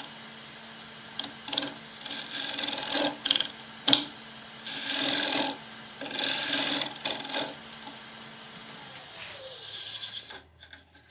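A scraper shear-scraping the outside of a spinning madrone-and-walnut bowl on a wood lathe: a series of rasping cutting passes, each lasting up to about a second, over the steady hum of the lathe. Near the end the lathe winds down and goes quiet.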